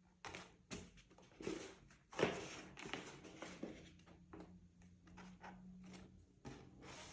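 Faint irregular handling noise: 260 latex modelling balloons rubbing and knocking lightly as one more is pressed into place, with a few quick clicks and rustles and the biggest one about two seconds in.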